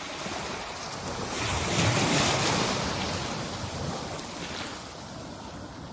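Ocean surf: a wave swells and breaks about a second and a half in, then washes back and fades.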